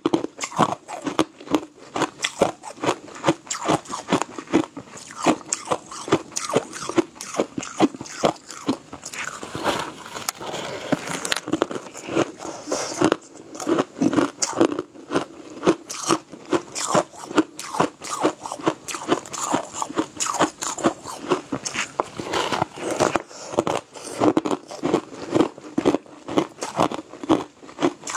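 Close-up crunching and chewing of frozen crushed ice: crisp, rapid crunches at about three or four a second, easing briefly about ten seconds in.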